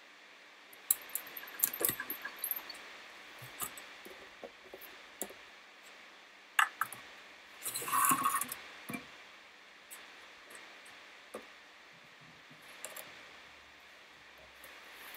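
Hobart coffee mill being handled with its motor stopped: scattered clicks and knocks on its metal housing, and a short metal rattle about eight seconds in as the latch on its front cover is worked.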